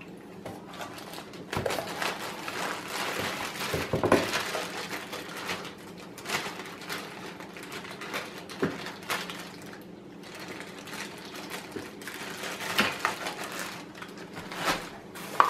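Plastic bags and wrap rustling and crinkling as chair parts are handled inside a cardboard box, with a few light knocks.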